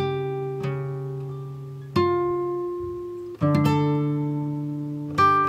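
Background music: acoustic guitar notes plucked and left to ring, a new chord every second or two, each fading out slowly.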